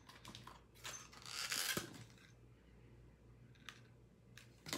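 Plastic clamshell pack of a Scentsy wax bar being handled and opened: a few light plastic clicks, a brief rustle about a second and a half in, and another click or two near the end.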